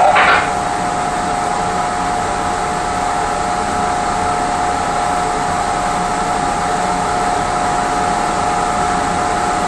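Steady running noise inside the rear coach of a moving Mugunghwa-ho passenger train, with a steady high hum held over it.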